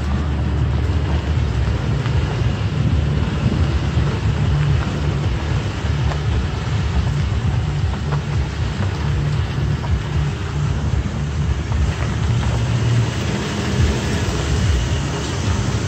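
Toyota Tacoma pickup driving along a dirt trail: a steady low engine and drivetrain rumble with an even hiss of tyres on dirt.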